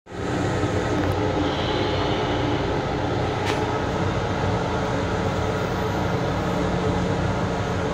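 Steady running noise of a Long Island Rail Road M7 electric railcar, a loud even rumble with a low hum, heard from inside its small restroom compartment. One light click about halfway through.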